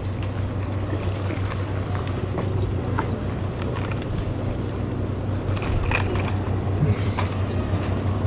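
Steady low drone of a passenger ferry's engine running underway, with a few faint clicks and knocks over it.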